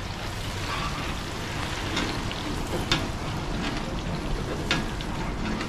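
Chips frying in a pan of hot oil: a steady sizzling hiss, with a few sharp clicks about two, three and nearly five seconds in.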